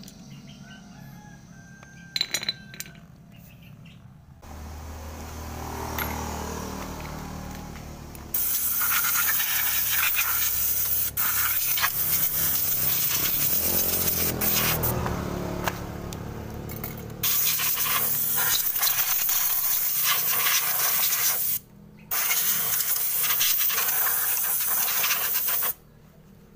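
Compressed air hissing loudly in long bursts with sharp starts and stops, with a few short breaks, starting about eight seconds in; before it, a low hum swells.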